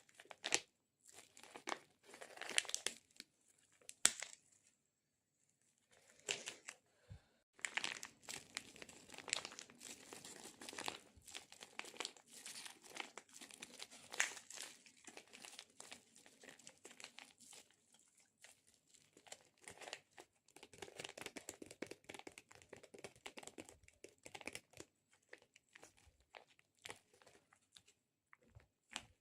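Close-miked ASMR sticky sounds: fingers pressing on and peeling off a tacky surface, making dense crackling and tearing clicks in clusters, with a pause of about two seconds after about four seconds.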